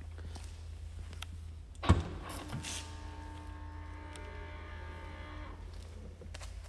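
Audi A8's boot lid opening: a sharp click of the latch releasing about two seconds in, then the lid's electric motor humming steadily for about three seconds as it lifts, stopping about five and a half seconds in.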